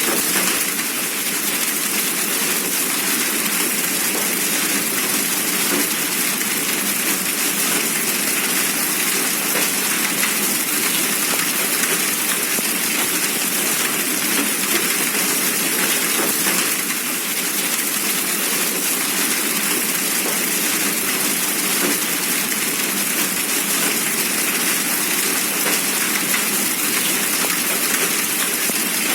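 Hailstorm: hail and heavy rain pelting down in a dense, steady patter of many small impacts.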